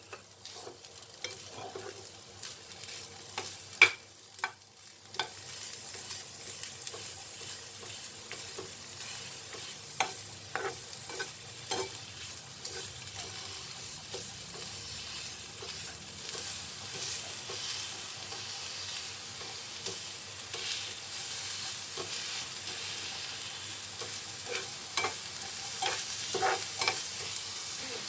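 Steel spoon stirring and scraping grated coconut and lumps of jaggery in a nonstick frying pan over low heat. A few sharp taps of the spoon on the pan in the first five seconds, then a steady sizzle sets in as the jaggery melts into the coconut, with occasional scrapes.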